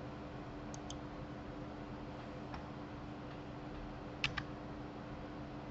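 A few short computer clicks, some in close pairs, with the loudest pair about four seconds in, over a steady low hum.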